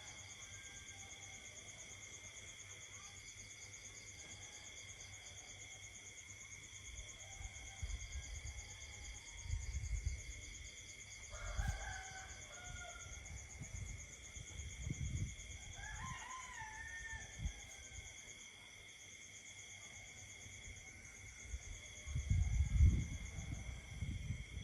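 Night insect chorus: several steady trills at different pitches, in the manner of crickets and katydids. Twice, about 11 and 16 seconds in, a distant rooster crows. Low rumbles come and go, the loudest near the end.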